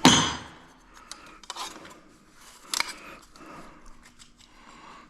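Metal exhaust clamps clinking and rattling as they are gathered up by hand, with a loud brief noise at the start and a few sharper clicks later.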